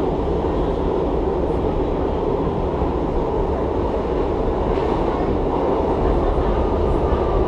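Steady rumble of an R62A subway car running along the track, heard from inside the car.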